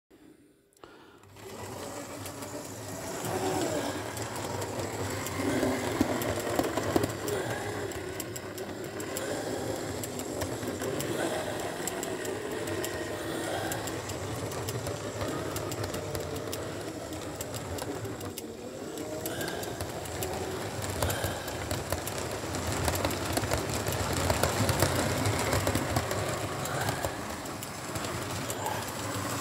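Model railway Class 47 locomotive running with its coaches: the steady whir of the small electric motor and the rattle of wheels on the track. It starts a second or two in.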